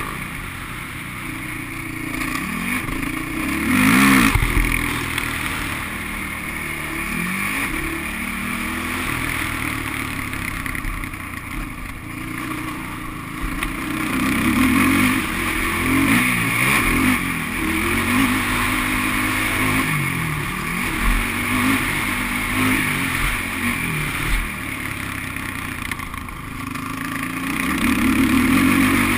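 Sport quad (ATV) engine revving up and down with the throttle as it is ridden around a dirt motocross track, heard from the rider's helmet. A brief loud burst cuts across it about four seconds in.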